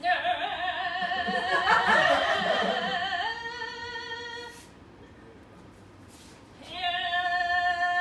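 A high voice singing in an operatic style with a wide, wavering vibrato for about three seconds, then dropping to a lower held note. After a short lull, a steady high note is held near the end.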